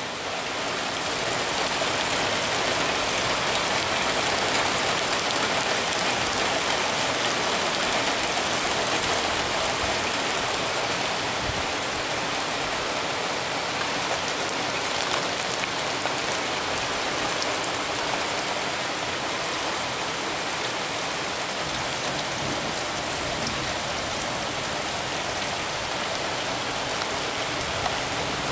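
Heavy rain pouring down onto asphalt: a dense, steady splashing rush that swells in the first second and then holds even.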